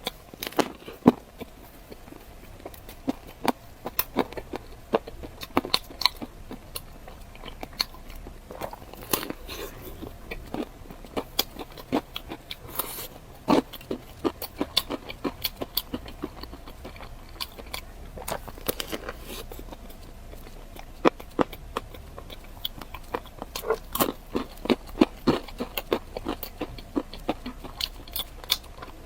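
Close-miked eating: biting and chewing food, with many irregular, sharp crunchy clicks and wet mouth sounds coming in clusters of several a second.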